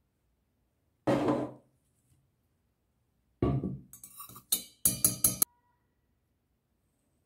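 Stainless steel measuring spoon clinking against a stainless steel pan as ground coffee is tipped in: a ringing clink about a second in, another a little after three seconds, then a quick run of sharp taps.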